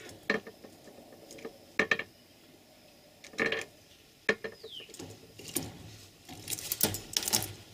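Irregular sharp clicks and knocks with a few short scuffling bursts, busier near the end. A New Caledonian crow is moving about on a wooden perch and a clear plastic apparatus.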